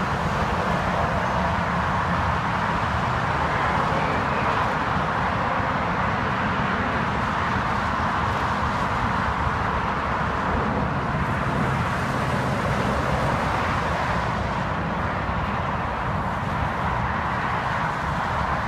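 Steady noise of motorway traffic mixed with the jet engines of an Avro Vulcan bomber flying over, its four Rolls-Royce Olympus engines partly masked by the traffic.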